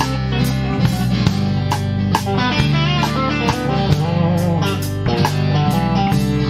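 Small band playing an instrumental passage: electric guitars and an electric bass over a steady drum beat, with a melody line that wavers and bends in pitch around the middle.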